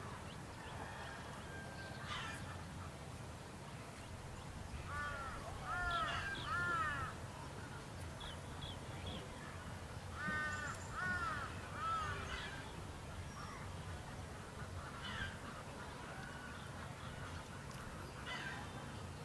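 Birds calling: two runs of three or four short calls that rise and fall in pitch, about five and ten seconds in, with a few fainter calls between, over a faint steady low hum.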